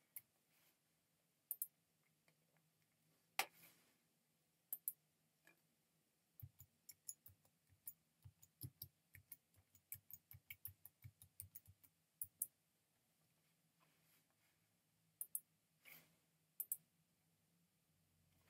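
Near silence with faint, scattered clicks, and a quick run of soft ticking taps from about six to twelve seconds in.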